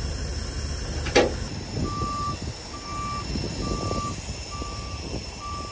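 Backup alarm of a heavy tow truck beeping steadily, about one beep a second, starting about two seconds in: the wrecker is reversing. A single sharp knock about a second in is the loudest sound.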